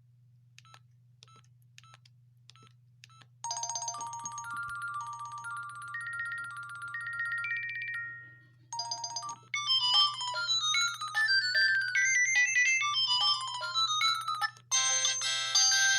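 LG W3000 mobile phone playing its built-in ringtones through its small loudspeaker, three short electronic melodies one after another, the last the loudest. Before them come a few seconds of short beeps about twice a second, all over a steady low hum.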